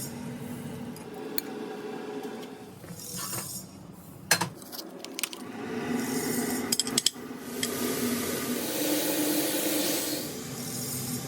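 Kitchen utensils and dishes clinking and scraping during food preparation, with a sharp knock about four seconds in and a quick run of clicks near seven seconds, then a hiss for about two seconds.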